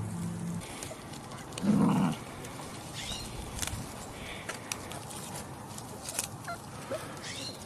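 Dachshund puppies making short, high squeaks and yips, with one louder, low sound about two seconds in.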